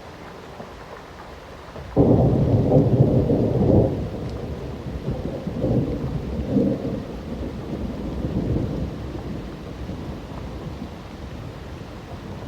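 Thunderclap over steady rain: a sudden crack about two seconds in, loudest for about two seconds, then rolling and fading away slowly while the rain goes on.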